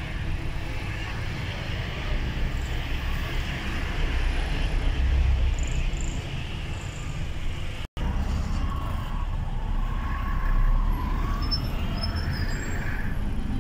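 Truck engine running and road noise while driving through city traffic, heard from inside the cab. The sound cuts out for an instant about eight seconds in.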